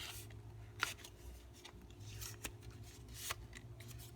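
A sheet of paper being handled and folded: soft rustling with sharp crinkles as tabs are tucked into a pocket of a paper airplane, the sharpest a little under a second in and again past three seconds. A steady low hum runs underneath.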